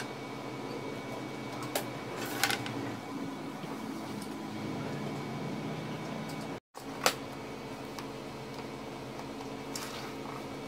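Steady machine hum with a few sharp clicks and taps from handling the MDF cabinet parts and edge-banding strip; the loudest click comes just after a brief cut to silence about two-thirds through.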